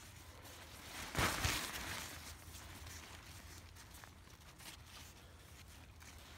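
Tarp fabric and its stuff sack rustling as a paracord ridge line is pulled through the tarp's ridge loops, with the loudest rustle about a second in and fainter scuffs after.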